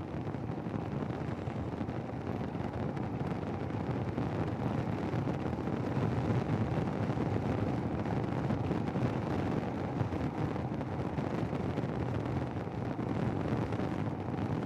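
Wind buffeting a motorcycle helmet intercom microphone while riding, a steady dense low rumbling rush with the bike's running noise mixed in.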